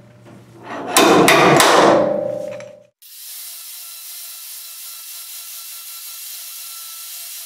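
Slide hammer yanked against a stud welded to a Triumph Spitfire's 20-gauge steel rear wing: a quick run of sharp metal clanks with some ringing, about a second in. Then, from about three seconds, an angle grinder grinds the welded studs flush with a steady hiss.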